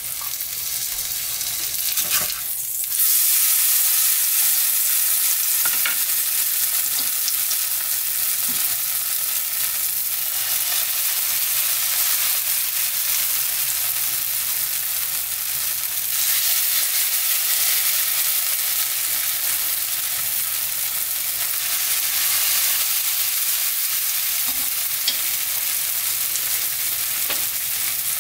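Shredded pumpkin pancake batter frying in plenty of hot oil in a nonstick pan: a steady sizzle that gets louder about three seconds in and again around the middle, as more batter goes into the oil. A few light clicks are heard in between.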